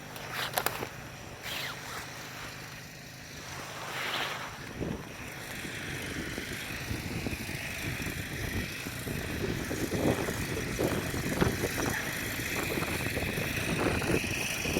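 Buran snowmobile's two-stroke engine running, with wind on the microphone; it gets louder and steadier about a third of the way in, with a few knocks and rattles near the end.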